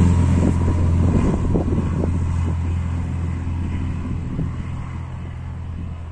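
Single-engine propeller training plane taking off and climbing away, its steady engine drone fading as it goes.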